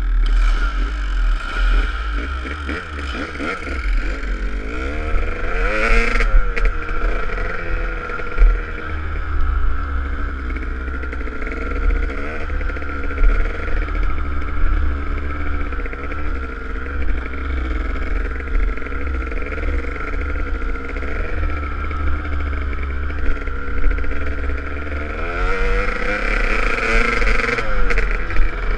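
Kawasaki KDX200 two-stroke single-cylinder dirt bike engine running under way, its revs rising and falling with the throttle and climbing sharply about six seconds in and again near the end. Wind buffets the microphone underneath.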